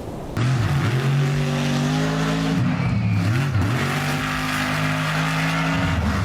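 A car engine running hard at high, fairly steady revs, cutting in abruptly about half a second in, with two quick dips in pitch around the middle.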